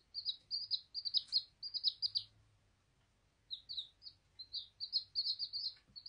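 Domestic chicks peeping: quick, high chirps in two runs, with a pause of about a second between them.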